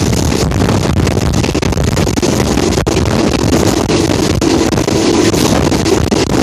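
Alsthom diesel-electric locomotive running steadily, with heavy wind buffeting the microphone.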